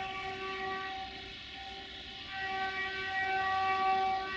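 Air horn of an LDE2100 (060-DA) diesel-electric locomotive sounding long blasts. One blast trails off about one and a half seconds in, and a second, louder one starts just after two seconds.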